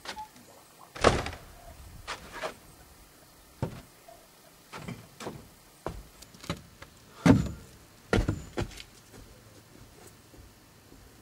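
A series of irregular knocks and thumps, about a dozen, spaced unevenly, the loudest about seven seconds in.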